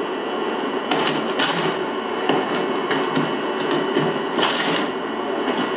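Scraping and rubbing against a painted wall, a run of irregular scratchy strokes over a steady hiss.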